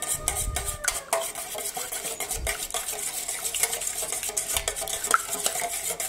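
A small wire whisk beating eggs and milk in a stainless steel bowl by hand, its wires clicking and scraping rapidly against the metal.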